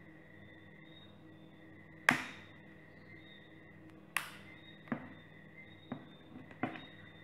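Plastic case of a Blu Studio 7.0 phone being pried open with a pry tool: two sharp snaps about two seconds apart as the clips let go, then a few lighter clicks.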